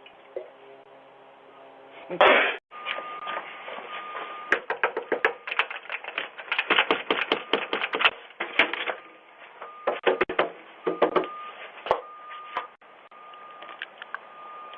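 Irregular rapid clicking and clattering, like small objects being handled, after a brief loud rustle about two seconds in, with a faint steady tone underneath.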